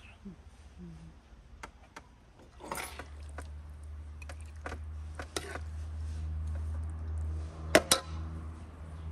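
A metal spoon scraping in a pan and clinking against a porcelain plate as food is served, with two sharp clinks close together near the end, over a low steady hum.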